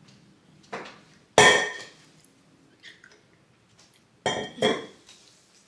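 Hard clinks and clacks from a white insulated tumbler being handled, its lid and handle knocking and the cup knocking on a granite countertop. The loudest knock comes about a second and a half in and rings briefly, and a quick double clack follows near the end.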